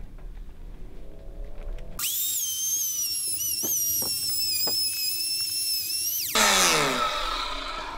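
Corded electric hand planer switched on about two seconds in, running with a high steady whine as it shaves down the edge of a wooden ledger board. It is switched off a little after six seconds in and spins down with a falling whine.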